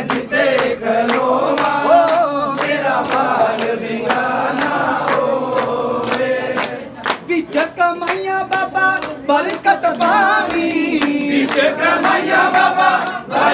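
A group of men singing a Punjabi devotional bhajan together, with a steady beat of sharp strikes keeping time.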